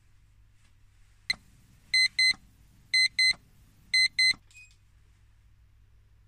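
Electronic alarm clock going off: a click, then three double beeps about a second apart, the wake-up alarm, followed by a short, softer blip.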